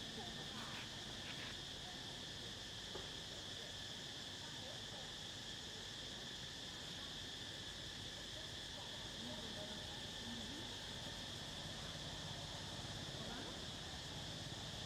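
Steady chorus of insects, one constant high-pitched buzz with no break.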